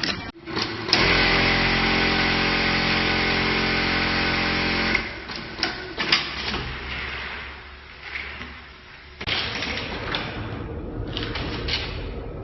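Industrial sewing machine fitted with an electronic puller, running at high speed with a steady pitched whir for about four seconds and then stopping. A few clicks follow, and near the end a quieter mechanical sound with clicks starts up.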